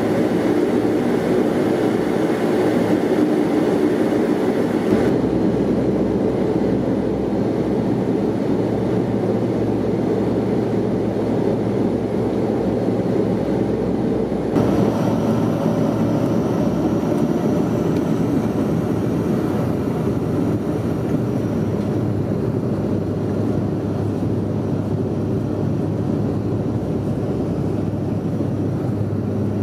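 Cabin noise inside a Bombardier Q400 turboprop while it taxis: a steady drone from its two Pratt & Whitney Canada PW150A engines and propellers. The sound changes abruptly about five seconds in and again about halfway through, with a low steady tone growing stronger near the end.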